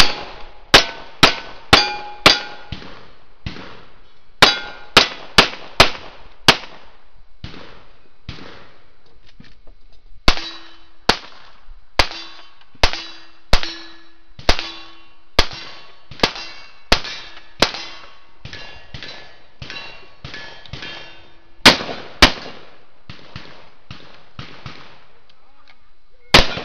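Cowboy action shooting gunfire: a rapid string of shots about half a second apart, each followed by the ring of steel targets being hit. The shots come in runs with pauses between them, and two loud shots come about 22 seconds in.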